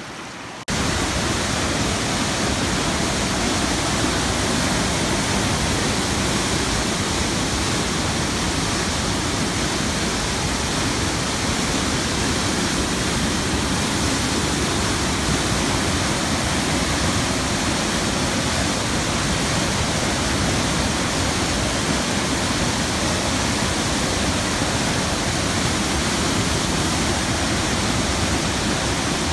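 Loud, steady rush of water, like a waterfall, cutting in abruptly less than a second in and holding even throughout.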